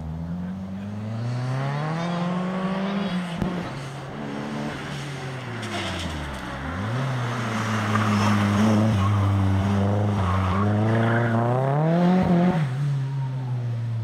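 Opel Astra turbo rally car engine being driven hard on a rally stage. Revs climb through the first few seconds, dip sharply about halfway as the driver lifts, climb and hold, then rise again before dropping back near the end.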